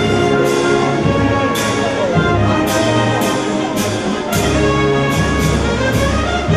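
Brass band music with held brass notes over a low bass line, and a cymbal clash on many of the beats.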